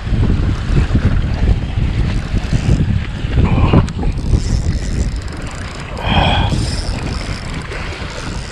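Wind buffeting the microphone, with waves washing against the rocks below. A short higher-pitched sound comes through about six seconds in.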